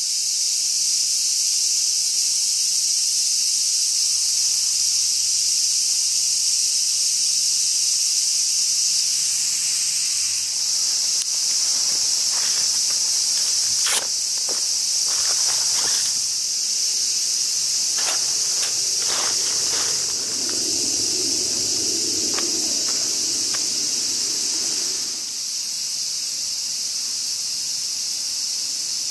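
Cicadas droning steadily in summer woodland. In the middle come a few sharp clicks and a stretch of fabric rustling as a backpack is handled.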